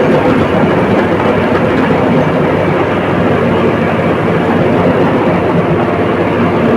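Komatsu D85ESS crawler bulldozer's diesel engine running steadily, with the dense clatter of its steel tracks mixed in.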